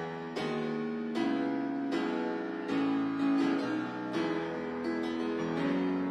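Grand piano played solo: a steady run of chords struck a little more than once a second, each one ringing on into the next.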